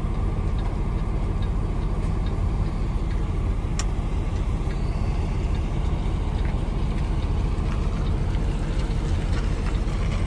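Semi-truck's diesel engine idling, heard from inside the cab: a steady low rumble, with one sharp click about four seconds in.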